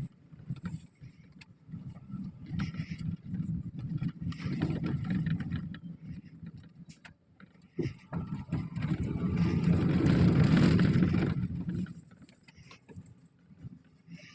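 A car engine runs with a low rumble, grows louder between about eight and eleven seconds, then drops away about twelve seconds in.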